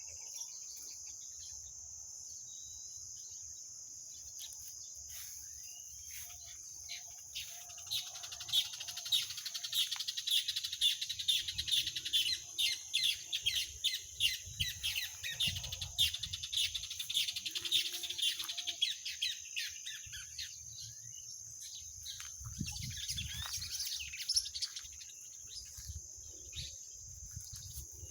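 Several birds singing, with many quick chirps and trills that grow busiest from about eight seconds in until about nineteen seconds. A steady high hiss runs underneath throughout.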